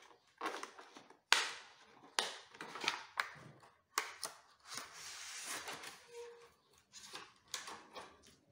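Scattered sharp plastic clicks and snaps with short bursts of rustling, from handling a new windshield wiper blade and its plastic packaging near the wiper arm.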